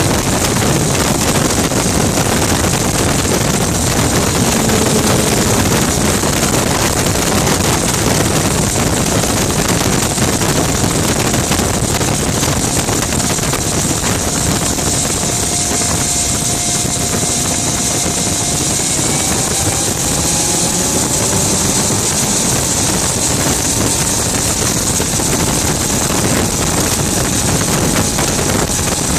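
Rover Jet 1 recreation's gas turbine engine running at speed: a loud, steady rushing hiss with a faint whine that rises in pitch about two-thirds of the way through.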